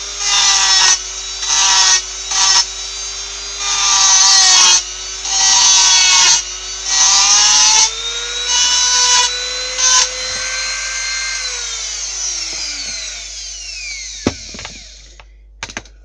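A small high-speed rotary power tool whining steadily while its bit grinds into the workpiece in about eight short bursts. Its pitch rises as it runs free, then about twelve seconds in it is switched off and the whine falls away as it spins down, followed by a couple of sharp knocks.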